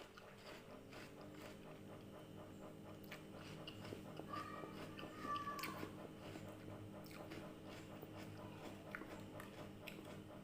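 Close-up chewing and biting of crisp red water apple (jambu air): many small wet, crunchy clicks.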